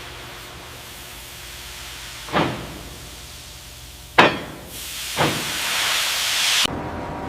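Three heavy clanks with a short ring after each, spaced a second or two apart, over a steady hiss. Near the end a louder hiss swells and then cuts off abruptly.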